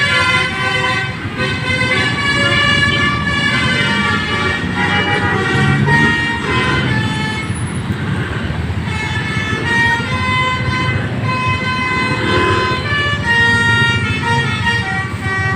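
Indonesian tour bus's telolet horn, a set of air horns playing a tune of held notes one after another, several pitches at once, over low traffic rumble.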